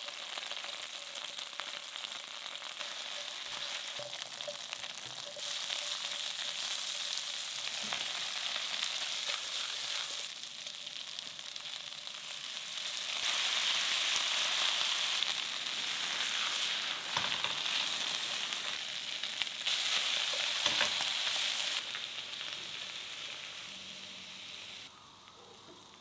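Oil sizzling in a nonstick frying pan as chili bean paste, Sichuan peppercorns, then lotus root slices and cabbage are stir-fried with a spatula. The sizzle steps louder and softer several times and falls away near the end.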